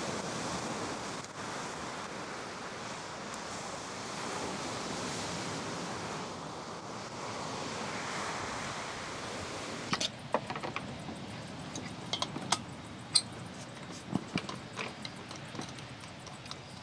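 Steady rushing noise of wind and surf. About ten seconds in it drops, and a run of light clicks and knocks begins close by.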